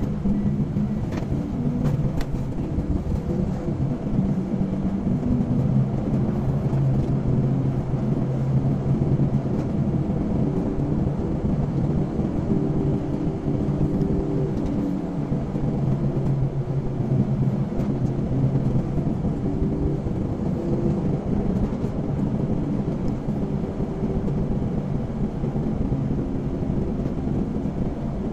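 Car engine hum and tyre noise at a steady cruising speed, a continuous low drone.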